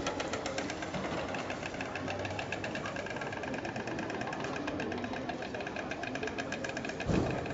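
White storks bill-clattering: a fast, even wooden rattle of about ten strokes a second, the greeting display given at the nest. A brief low bump comes near the end.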